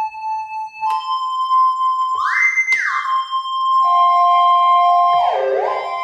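Synthesizer notes played from a cat-shaped toy piano rebuilt as a MIDI keyboard, sounding through an iPad synth app. The held notes are pitch-bent: about two seconds in the note slides up about an octave and back down, and near the end it swoops down and back up.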